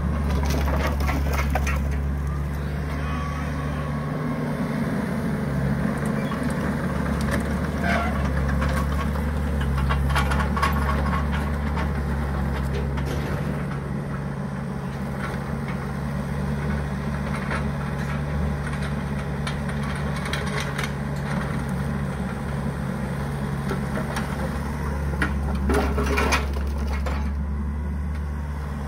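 New Holland Kobelco 50.2 mini excavator's diesel engine running steadily as its bucket digs into and shifts a heap of split firewood. Logs clatter and knock against each other every few seconds, loudest near the end.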